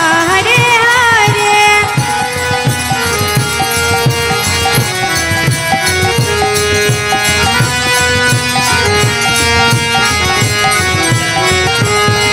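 Background Indian devotional music: a hand drum keeps a steady beat under long held melodic notes, with a melody sliding in pitch near the start and again near the end.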